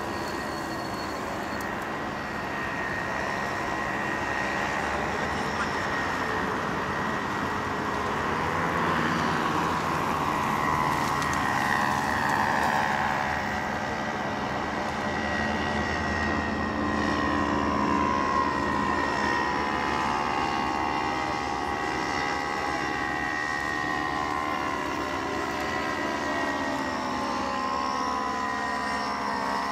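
Steady distant engine drone, its pitch sliding slowly up and down.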